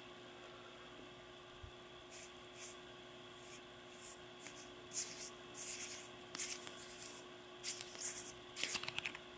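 A small aluminium flashlight, a 4Sevens Quark Mini CR2, being unscrewed by hand: a run of short, dry scraping rubs as the threaded body turns and fingers grip the knurled tube, starting about two seconds in and coming thicker and faster near the end.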